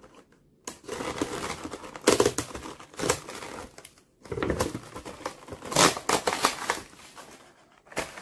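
Cardboard toy box and clear plastic blister tray crinkling and tearing as they are pried open by hand, in irregular stretches with a few sharper crackles.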